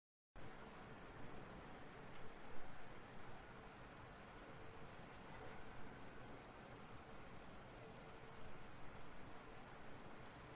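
Grasshopper stridulating: a continuous, high-pitched shrill trill at a steady level, starting abruptly out of silence about half a second in.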